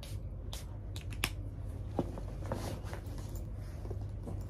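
A few small clicks and taps of a little glass perfume bottle being handled, the sharpest just over a second in, over a steady low hum.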